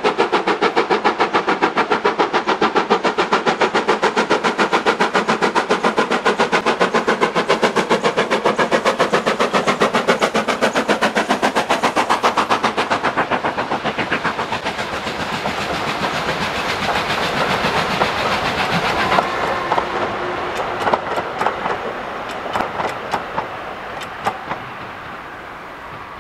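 Steam locomotive hauling a train of coaches, its exhaust beating in a fast, even rhythm. About halfway through the beats give way to the coaches running by, with irregular clicks of wheels over the rail joints, growing fainter as the train moves away.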